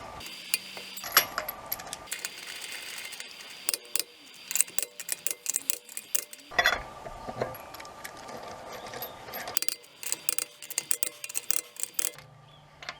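Rapid metallic clicking of a ratchet wrench, with clinks of lug nuts and sockets, as lug nuts are loosened and wheel-lock nuts threaded on and tightened.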